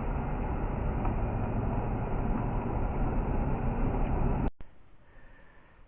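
Steady low rumble of a vehicle's engine and road noise heard from inside the vehicle, which cuts off abruptly about four and a half seconds in, leaving a faint quiet hiss.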